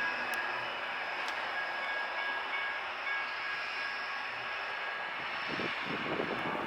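Light rail train running, a steady rolling noise with a faint high whine of steady tones over it.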